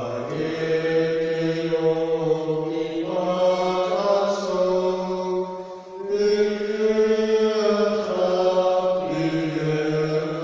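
A man's solo voice chanting a liturgical melody in long held notes, phrase by phrase, with short breaks for breath.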